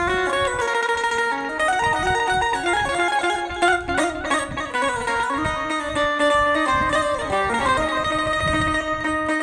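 Banjo playing a melody of plucked, ringing notes, with the pitch stepping from note to note throughout; it is being played to show off its tone.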